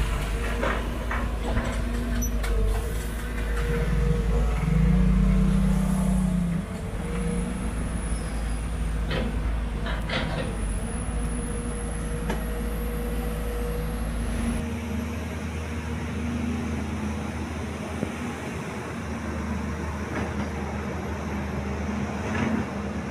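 Sumitomo SH210 hydraulic excavator's diesel engine running steadily at work, growing louder for a couple of seconds about five seconds in, with a few sharp knocks around nine and ten seconds in.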